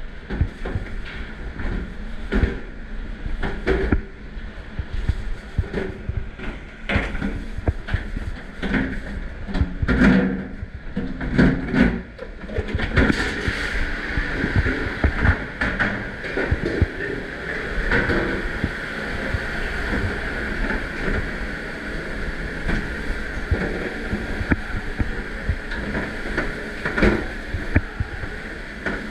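Commercial dish-room work: dishes, trays and utensils knocking and clanking over a steady rush of water and machine noise. The rushing gets stronger about halfway through.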